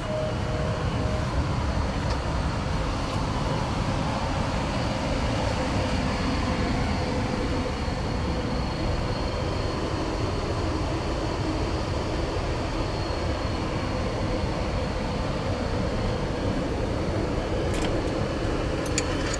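Steady rumble of a Caledonian Sleeper carriage heard from inside its corridor, with a faint high whine over it. Near the end come a couple of short clicks as the compartment door's lock is worked.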